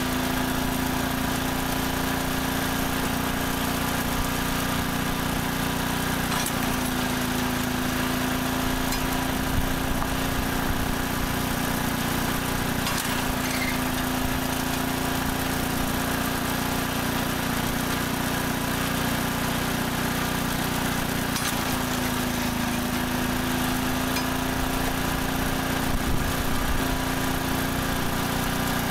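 Small Briggs & Stratton engine powering a homemade firewood processor, running steadily. Its note sags briefly a few times as the machine is worked.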